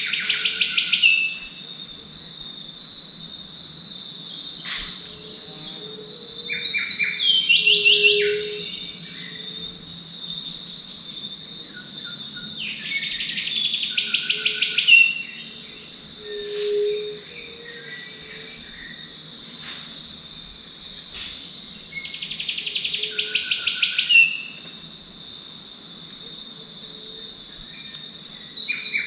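Forest birdsong: one bird repeats a phrase about four times. Each phrase is a few falling whistles followed by a fast, swelling run of notes that stops abruptly. Under it runs a steady high insect drone, with a low hooting call now and then.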